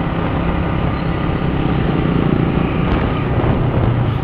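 Motorcycle engine running steadily at riding speed, a constant low drone, with wind rushing over the microphone.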